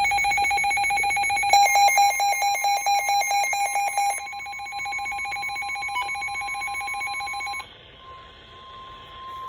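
Midland WR120EZ weather radio sounding its electronic alert alarm for a Flash Flood Warning: a loud, shrill, ringing tone that pulses rapidly from about one and a half to four seconds in. At about seven and a half seconds it drops to a quieter single steady tone.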